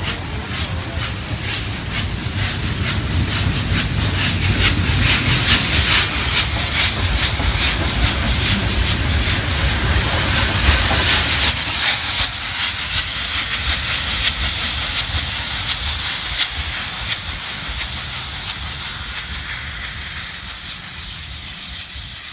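Steam train of heritage carriages and the Beyer-Garratt steam locomotive 6029 passing close by: steam hissing and wheels clicking over the rail joints. It grows loudest around the middle as the locomotive goes past, then fades as the train draws away.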